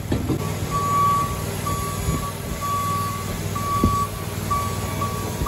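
Forklift warning alarm beeping, a steady high beep repeating about once a second while the forklift moves, with an engine running low beneath. A single knock sounds about four seconds in.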